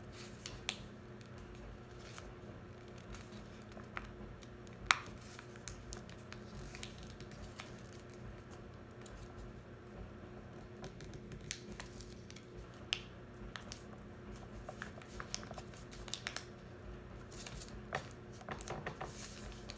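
A sheet of paper being folded and creased by hand on a tabletop: faint scattered crinkles and taps, with one sharper tap about five seconds in and a run of small crinkles near the end, over a steady low room hum.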